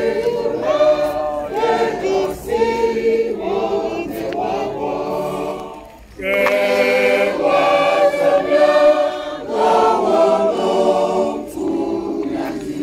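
Large robed church choir singing unaccompanied under a conductor. The singing drops away briefly about six seconds in, then comes back at full strength.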